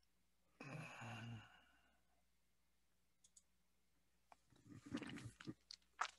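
Mostly near silence, with a brief sigh about a second in and faint clicks and breath noises near the end.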